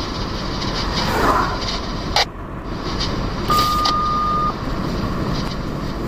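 Road and engine noise heard inside a moving car's cabin, with a sharp knock about two seconds in and a single steady beep about a second long around the middle.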